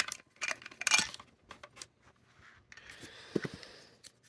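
Small clicks, taps and rustling from handling LED candles and their packaging, with a couple of soft knocks a little past the middle.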